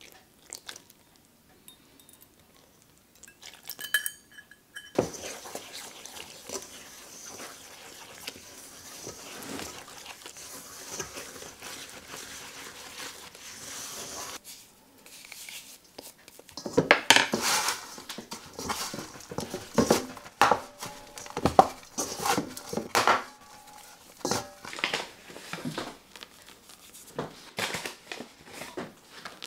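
A metal measuring spoon clinks against a stainless steel mixing bowl, then a spoon stirs and scrapes steadily for about ten seconds as flour and water are mixed. After that come many sharp knocks and scrapes of the spoon against the bowl as the dough comes together.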